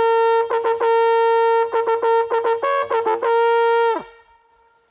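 A brass hunting horn blown loudly: one long held note broken by runs of quick repeated notes and a few jumps up to a higher note, cutting off sharply about four seconds in.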